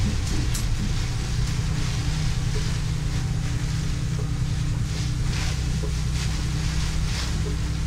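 Heavy rain and wind on a moving vehicle, heard from inside the cab over a steady low engine hum, with a few brief hissing surges.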